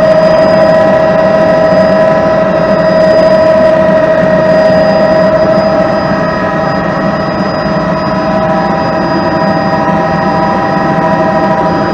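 Turbine helicopter in flight, heard from inside the cabin: a steady high whine of several tones over a dense rotor and engine rumble.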